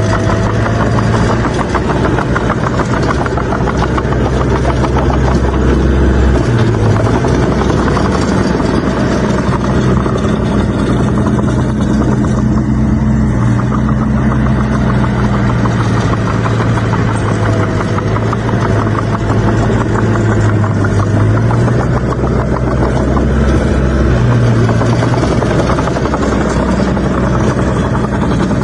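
Heavy diesel engine of a bulldozer running steadily, its low engine note shifting down about six seconds in and back up near the end as the load on it changes.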